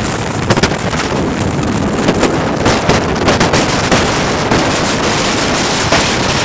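Wind buffeting the microphone in loud, irregular gusts on the open deck of a moving ferry, over a steady rush of the boat's engines and churning wake.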